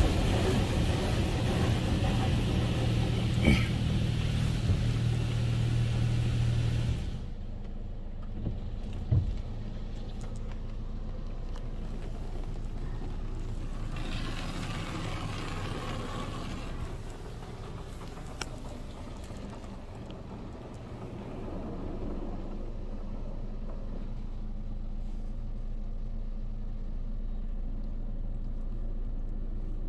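Water jets of a Water Wizard touchless car wash spraying onto the car, heard from inside the cabin, over a steady low hum. The spray stops abruptly about seven seconds in, leaving a quieter hum, with a brief swell of spray passing about halfway through.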